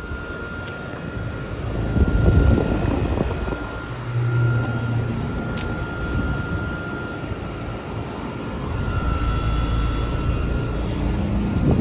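Trane central air conditioner outdoor condensing unit running: a steady compressor hum and fan rumble with a thin, steady high whine over it.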